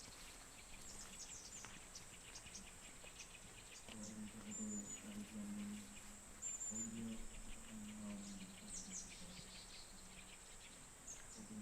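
Small birds chirping in short, quick notes over a steady high-pitched insect trill. A low, drawn-out chanting voice, Buddhist prayer, comes in a few times, faint and distant.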